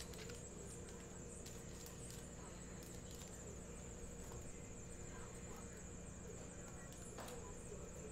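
Faint clicks and rustles of trading card packs and a plastic card sleeve being handled, over a low steady electrical hum.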